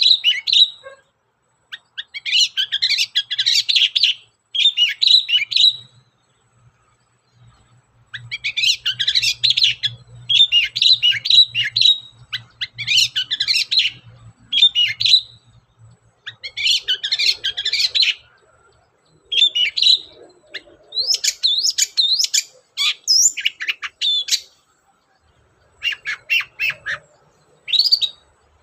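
Long-tailed shrike singing in repeated bursts of rapid, scratchy chattering notes, each burst a second or two long, with short pauses between them.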